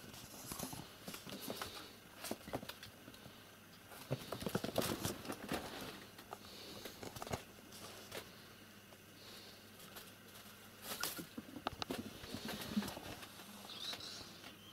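Irregular light taps, knocks and scuffles of cats and a person moving about on a wooden floor and rugs. The taps come thickest about four to six seconds in and again around eleven to thirteen seconds.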